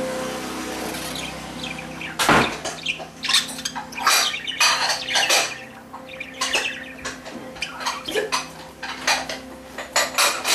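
Pet budgerigar chattering in its wire cage: a run of quick, sharp chirps and clicks, with one louder knock about two seconds in.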